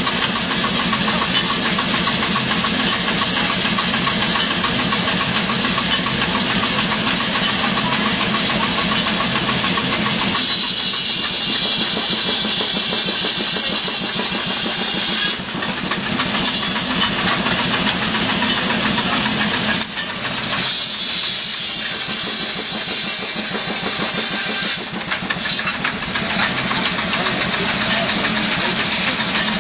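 Shingle mill saw running steadily with its drive engine, then from about ten seconds in cutting aromatic cedar shingles. Each cut is a loud steady saw noise, about four cuts a few seconds apart with short breaks between.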